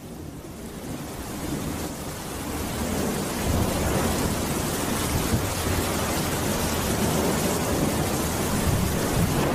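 Heavy rain pouring steadily, fading in over the first three seconds or so, with a low rumble underneath from a few seconds in.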